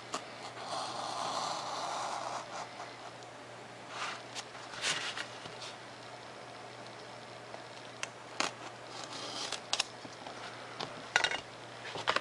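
Razor knife drawn along a ruler through a sheet of 3mm Depron foam: a scraping cut lasting about two seconds. Several sharp clicks and taps follow later.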